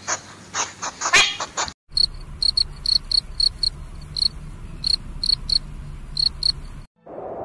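Cricket chirping: short, high, single-pitched chirps repeated two to three times a second. Before it, in the first two seconds, there are a few loud, sharp, noisy breaths or snorts from an animal.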